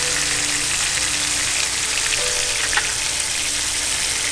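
Wine and cherry tomato pan sauce simmering in a skillet, giving a steady sizzle and bubbling hiss.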